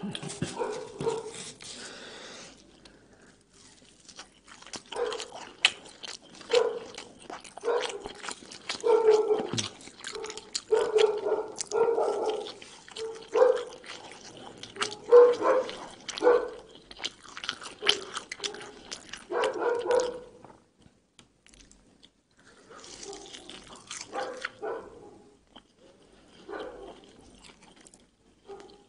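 Close-miked eating: a man chewing Egyptian hawawshi, baladi bread baked with spiced minced meat. Wet chewing with many small clicks and crackles comes in uneven bursts and thins out for a while about three-quarters of the way through.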